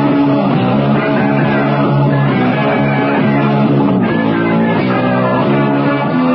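Rock music with guitar playing steadily, a record played out on a radio broadcast.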